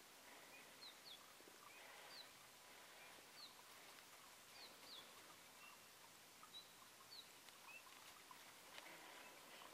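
Faint, scattered short high bird chirps, a dozen or so, over the near-silent hush of woodland.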